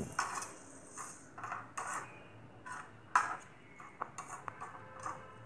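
Metal spatula scraping and stirring in a kadai, mixing fried prawns into a thick masala: a run of short, irregular scrapes, the loudest about three seconds in.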